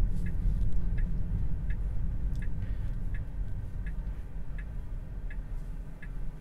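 Tesla Model 3 turn-signal indicator ticking in the cabin, an even click about three times every two seconds while the car turns, over a low steady rumble of road and cabin noise.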